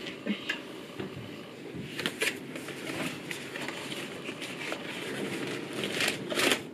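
Hands opening a small cardboard box and drawing a plastic bag out of it: cardboard flaps scraping and plastic crinkling, with sharper rustles about two seconds in and again near the end.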